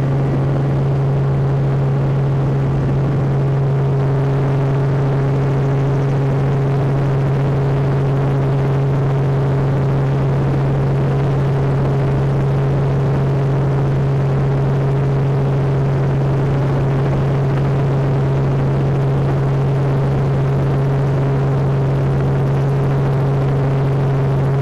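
Helicopter engine and rotor running steadily, heard from inside the cabin: a loud, constant drone with a strong low hum that does not change.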